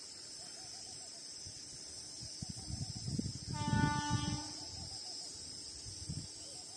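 A distant train horn sounds once, a single pitched blast of about a second midway, with low rumbling around it. Under it runs a steady high insect buzz and a soft bird call repeating about once a second.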